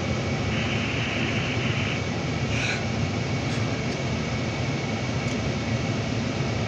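Steady low rumble and hiss heard inside a vehicle cabin, with a thin high tone throughout. A brighter hiss comes in about half a second in and lasts over a second.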